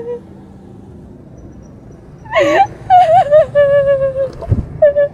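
A young woman sobbing hard: fairly quiet for the first two seconds, then a sharp gasp and a run of high, wavering crying wails. A dull thump comes near the end.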